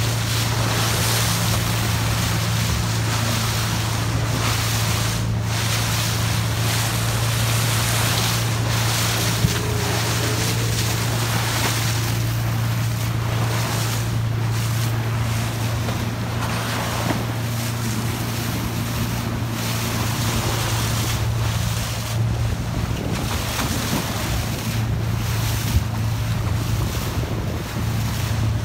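A boat's engine running with a steady low hum, under water rushing and splashing along the hull and wind buffeting the microphone.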